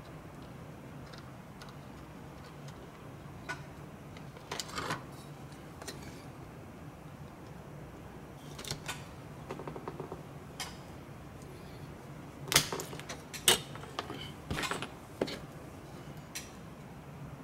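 Scattered clicks and taps of sprue cutters and a small plastic model part being handled on a workbench, with two sharp snaps about three-quarters of the way through, over a low steady hum.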